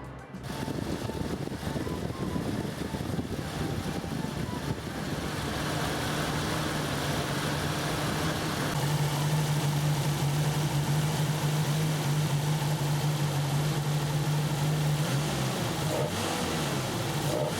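Toyota AE86 Levin's engine running with a steady note, its pitch rising and falling a little near the end as it is revved.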